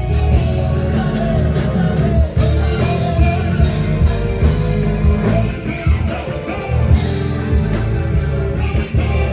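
Loud music with singing over strong, pulsing bass notes.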